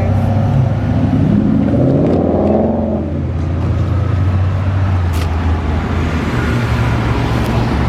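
Road traffic: a steady low rumble, with a passing car's engine rising in pitch from about a second and a half in, fading by three seconds.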